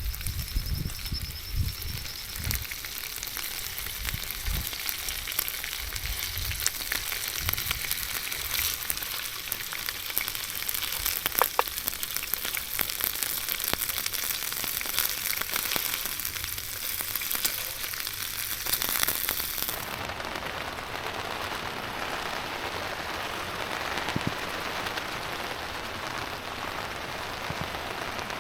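Rain falling, a dense crackle of many small drops with a few sharper clicks. About twenty seconds in, the crackle gives way to a smoother, steadier hiss.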